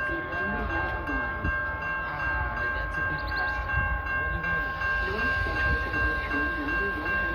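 Metra commuter train approaching from a distance: a steady low rumble, with a steady high-pitched ringing tone throughout and people's voices on the platform.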